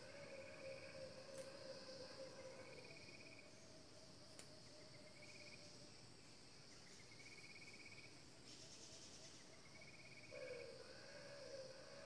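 Faint forest insect chorus: a steady high buzzing, with short pulsed trills repeating every two seconds or so. A lower steady hum drops out about three seconds in and returns near the end.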